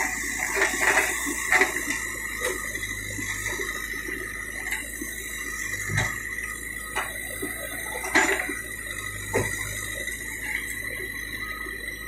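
Case 770EX backhoe loader digging with its rear bucket: a steady machine noise with a constant high whine, and a few sharp knocks as the bucket bites into and scrapes the soil.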